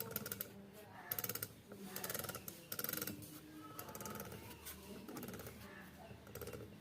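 Ola S1 Air electric scooter's hub motor making an abnormal noise: short bursts of rapid, ratchet-like clicking, three of them between about one and three seconds in, over a low steady hum.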